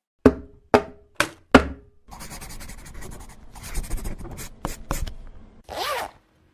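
A run of short sound effects: four quick sharp knocks, each with a brief ringing tail, then about three and a half seconds of grainy scratching like a pen scribbling, and a short sliding squeak near the end.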